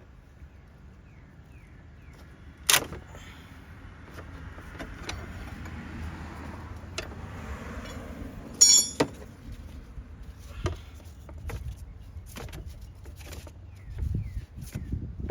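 Metal hand tools clinking and knocking against metal under a car's hood, with two loud sharp metallic clanks about three and nine seconds in and lighter clicks and handling noise between them.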